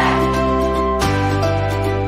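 Background music: soft instrumental with held notes over a bass line that changes about once a second.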